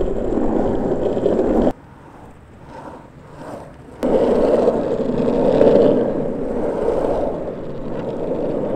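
Cruiser skateboard wheels rolling on rough asphalt: a steady rumble. It drops away suddenly about a couple of seconds in and comes back just as suddenly a couple of seconds later.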